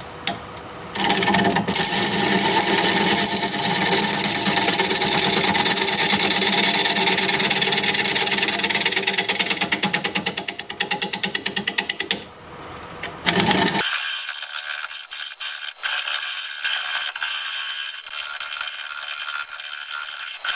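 A 5/8-inch bowl gouge cutting into a hard cherry plum bowl blank spinning on a wood lathe at about 550 RPM, a loud fast rhythmic chatter. The cut breaks off about twelve seconds in and starts again a second or so later, lighter and hissier.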